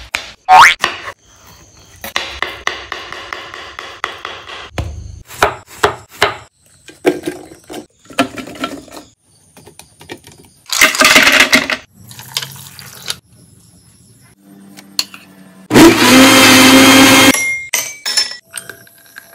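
Kitchen knife slicing apple on a wooden cutting board with a few sharp chops. A countertop blender then runs loudly twice, for about a second partway through and for a second and a half near the end. Ice cubes clink in a glass at the very end.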